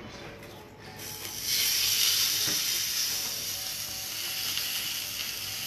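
Kansas City strip steak hitting a smoking-hot oiled pan and sizzling hard: the start of a sear. The sizzle starts about a second in, swells quickly, then holds steady.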